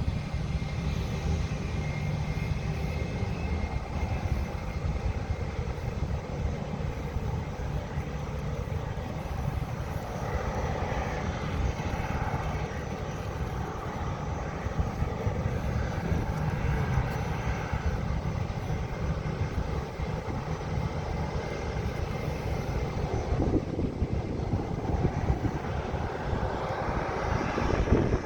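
Airplane engines at takeoff power, a steady rumble with a hiss above it.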